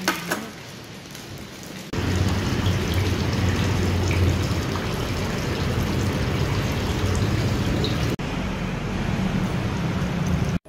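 Thin jets of water from a fish-shaped fountain spout and a pipe splashing into a koi pond: a steady rushing splash with a low hum beneath, starting about two seconds in.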